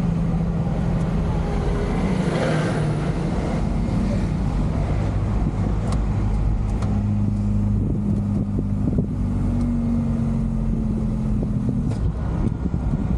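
JAC truck's diesel engine running in the cab while driving, with a brief swell of noise about two seconds in as a large oncoming truck passes close by. The engine note climbs gently in the middle and drops away near the end, with a few light knocks and rattles.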